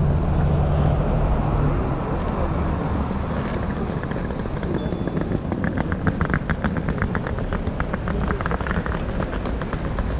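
Street sounds: a motor vehicle's engine running close by, loudest in the first two seconds and then fading. From about the middle, a rapid clatter of sharp clicks lasts a few seconds.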